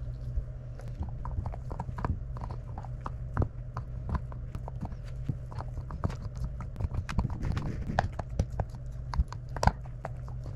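A young cattle dog–husky mix gnawing a hard chew bone: irregular sharp clicks and cracks of teeth on the bone, the loudest about nine and a half seconds in.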